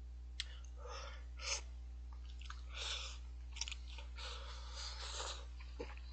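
A person slurping and chewing instant cup ramen noodles from chopsticks close to the microphone. There are several short slurps and a longer one about four seconds in.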